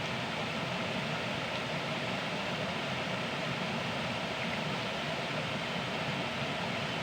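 Steady rushing of a waterfall, an even unbroken noise.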